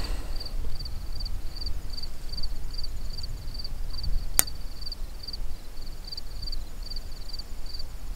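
An insect chirping steadily in short, evenly spaced high chirps, about three a second, over a low rumble, with one sharp click about four seconds in.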